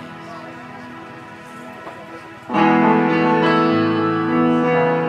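Background instrumental music of held chords and sustained notes, soft at first, then coming in much louder about halfway through.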